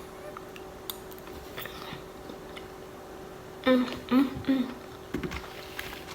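A person chewing a stuffed clam, with soft wet mouth clicks. About four seconds in come three short voiced sounds from the eater.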